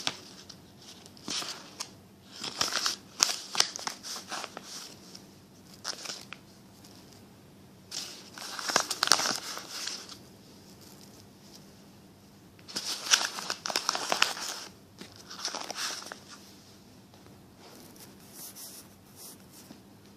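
Paper being crumpled and handled, crinkling in several short bursts with quiet pauses between them.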